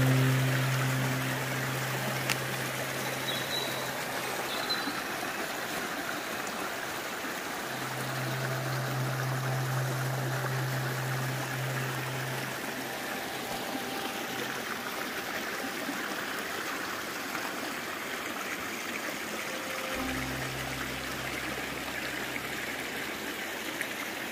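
Steady rush of running water. A low steady tone comes and goes three times beneath it.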